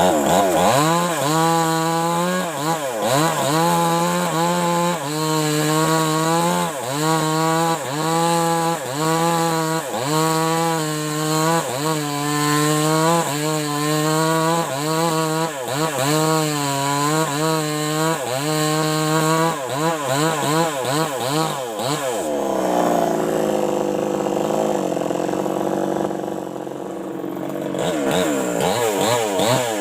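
New West 588 two-stroke chainsaw running at high revs while cutting wood, its pitch dipping and recovering about once a second. About three-quarters through it drops to a lower, steadier note, then revs up again near the end.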